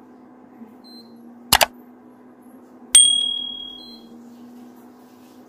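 Subscribe-button sound effect: a sharp double mouse click, then about a second and a half later a bright bell ding that rings out and fades over about a second. A steady low hum runs underneath.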